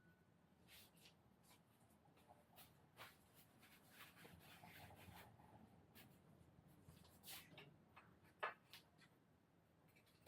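Near silence with faint rubbing and scattered small clicks, as of hands handling tools and bicycle parts during assembly, and one sharper click about eight and a half seconds in.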